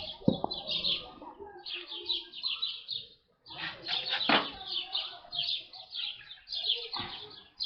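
Small birds chirping rapidly and continuously, with a few sharp knocks about a second apart at the start, in the middle and near the end.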